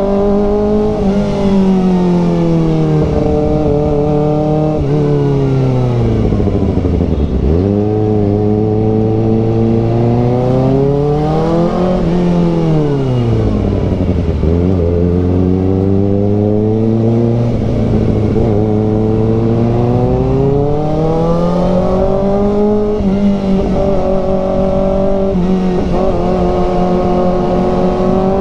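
Kawasaki ZX-4RR's inline-four engine under way, its revs climbing and dropping several times with steps at the gear changes.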